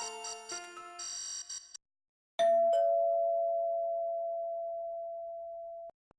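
Nokia 1280 ringtones: a chiming electronic melody ends about two seconds in. After a short gap comes a two-note doorbell-style ding-dong, a higher note and then a lower one, held and fading slowly for about three and a half seconds before cutting off suddenly.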